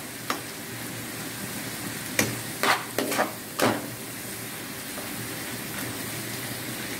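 Shrimp and tomatoes sizzling in a pan as they are stirred, with a steady frying hiss. Several short, louder strokes of the stirring utensil against the pan come between about two and four seconds in.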